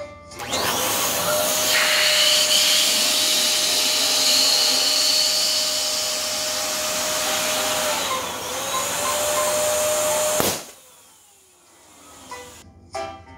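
Electric balloon pump running steadily as it inflates a latex balloon, with a brief dip in pitch, until the balloon bursts with a sharp pop after about ten seconds.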